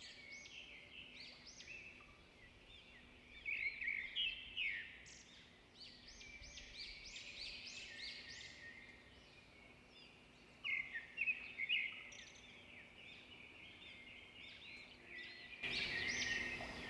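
Birds chirping and singing: many short, quick calls in clusters, fairly faint.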